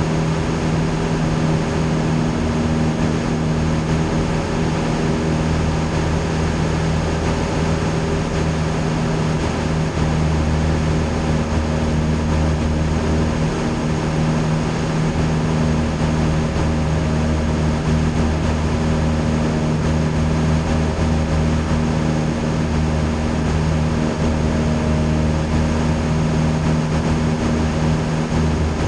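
Single-engine light aircraft's piston engine and propeller heard from inside the cockpit in cruise: a steady, loud drone with constant tones that never change.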